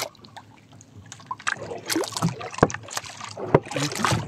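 Sea water lapping and splashing against the side of a small outrigger fishing boat, with two sharp knocks about a second apart in the second half.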